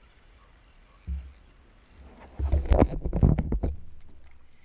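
Sounds of fighting a hooked fish from a kayak: a dull thump about a second in, then a rough burst of irregular knocks and splashy noise lasting about a second and a half, which then fades.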